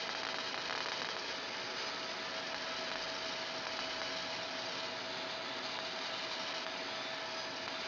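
Fiber laser marking machine running while it engraves aluminium: a steady hiss with one constant mid-pitched tone running through it.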